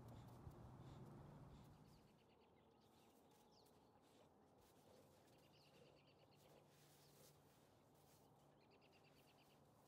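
Near silence with a small bird's faint trills, three short bursts of quickly repeated high notes. A faint low rumble fades out about two seconds in.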